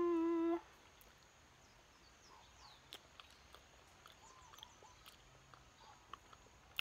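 A woman's brief held vocal sound, rising then steady for about half a second. After it, a quiet outdoor background with small birds chirping now and then and a few faint clicks.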